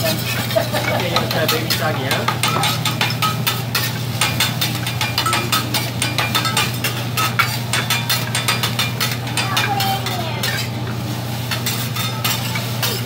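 Metal spatula clicking and scraping quickly against a hibachi griddle as rice and vegetables sizzle on the hot steel, over a steady low hum.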